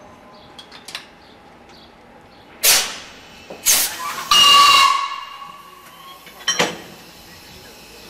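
Compressed air hissing from a train's pneumatic equipment at a standstill: two short sharp blasts, then a longer hiss with a whistling tone a little over four seconds in, and one more short blast near the end.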